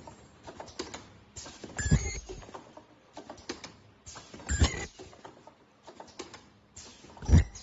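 Automatic N95 mask ear-loop welding machine running its cycle: a heavy clunk about every two and a half seconds, three times, the first two with a brief high whine. Light clicking and ticking fill the gaps between.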